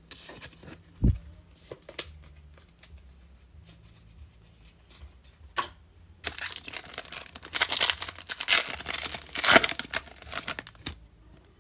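Wrapper of a trading card pack being torn open and crinkled, with a dense stretch of ripping and crinkling through the second half. Before it come a few light clicks and a low thump about a second in.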